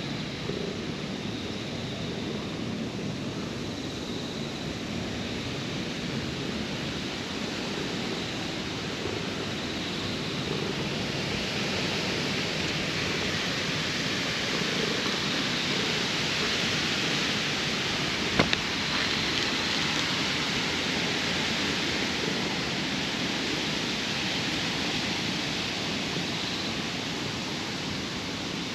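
Steady outdoor hiss with no clear source, growing brighter and a little louder around the middle, with one sharp click about two-thirds of the way through.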